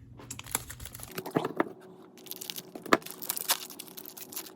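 Foil wrapper of a Pokémon booster pack being torn open and crinkled by hand, a run of irregular sharp crackles and crinkles.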